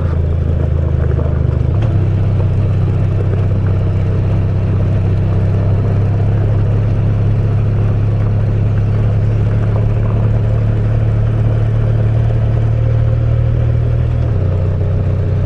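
Honda VFR1200X's V4 engine running steadily at low revs on a gravel road, with tyre noise from the gravel. The engine note shifts a little about two seconds in and again near the end.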